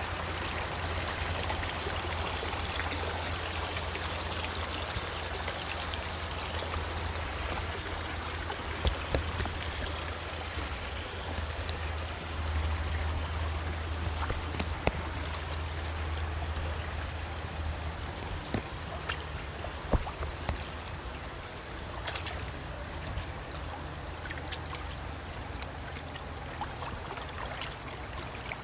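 River flowing: a steady rush of running water, with occasional short sharp clicks or splashes on top. A low rumble underneath eases after about 18 seconds.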